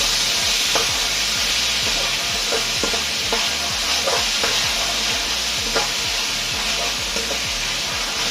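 Pork, peppers, onions, ginger and garlic sizzling steadily in a hot wok while being stirred, with short stirring strokes repeating a few times a second.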